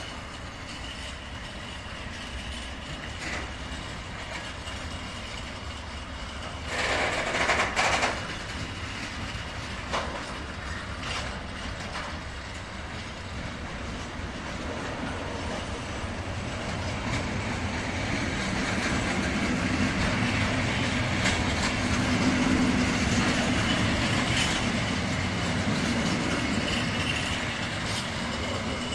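Freight train of container and tank-container wagons rolling past, wheels running over the rails with scattered clicks. A brief loud noise comes about seven seconds in, and the rolling grows louder through the second half.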